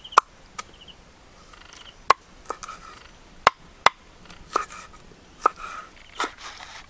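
Large knife slicing raw ginger into strips on a wooden cutting board: sharp, irregular knocks of the blade hitting the board, about nine of them.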